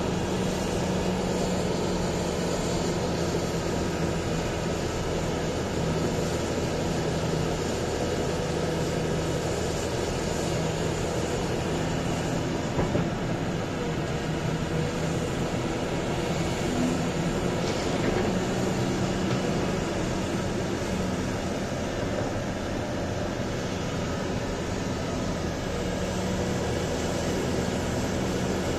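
Large diesel engines of a Volvo EC950E mining excavator and an XCMG XDE150 haul truck running with a steady drone as the excavator works a loading cycle. A brief knock sounds about thirteen seconds in.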